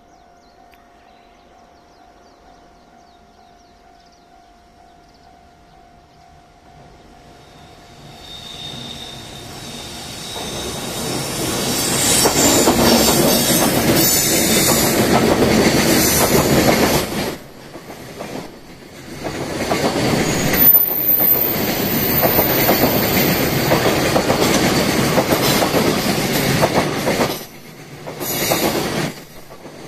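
Level crossing alarm sounding, then a long container freight train approaches and passes close by, loud from about a third of the way in: wagon wheels clattering over the rail joints under a heavy rumble, with a high wheel squeal partway through.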